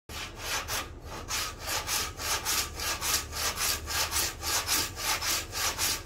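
Hand saw cutting across a wooden batten in quick, even back-and-forth strokes, about three a second.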